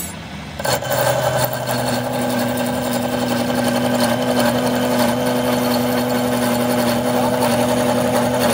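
Metal lathe spinning a steel shaft in its chuck: a steady mechanical hum with a higher whine, stepping up louder about a second in.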